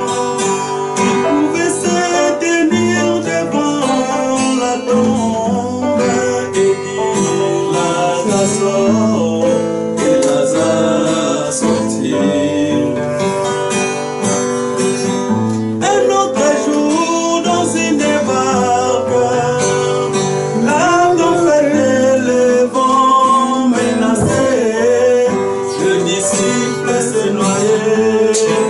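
Acoustic guitar played continuously, with a man singing over it.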